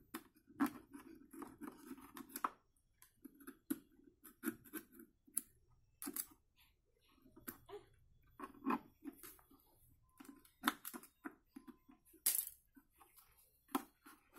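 Irregular small scrapes and clicks of a knife working on a mixer grinder's metal motor shaft, cleaning the shaft where the worn coupler came off.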